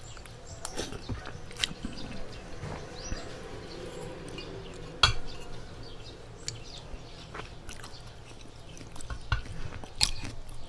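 Close-miked chewing and eating of instant noodles, with a metal spoon clinking and scraping against a glass bowl. Scattered short clicks throughout, with one sharp click about halfway through as the loudest.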